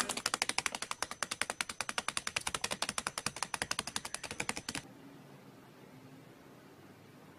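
Blue masked lovebird nibbling and tearing paper with its beak: a fast, even run of dry clicks, about ten a second, that stops abruptly a little under five seconds in, leaving only faint room tone.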